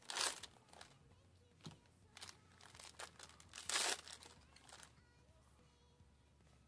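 Foil booster-pack wrappers crinkling and tearing as trading card packs are opened. There is a loud burst right at the start and the loudest, longer one a little past halfway, with lighter rustles and clicks between; it goes quieter from about five seconds in.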